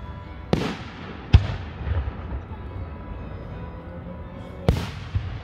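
Aerial firework shells bursting: sharp booms about half a second in and again a second later, the second the loudest, then another near the end, quickly followed by a smaller crack. Each is followed by a short low rumble.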